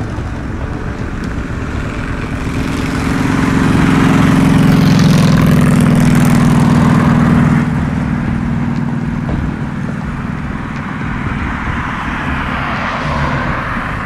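A motor vehicle passing on the road, building up over a couple of seconds to a loud hum with a wash of tyre noise, then dropping away abruptly; a second, quieter pass swells near the end.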